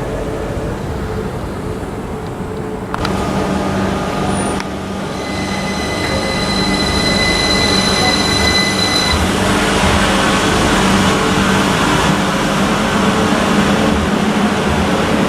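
A Northern class 333 electric multiple unit running at the platform over a steady low hum. A sharp click comes about three seconds in, then a steady high-pitched tone holds for several seconds, and the train's running noise grows louder through the second half.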